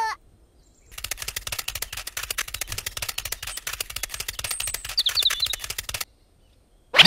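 A rapid, even run of dry clicks that starts about a second in and stops abruptly about a second before the end, with a few faint high chirps in the middle. A short, loud gliding sound comes right at the end.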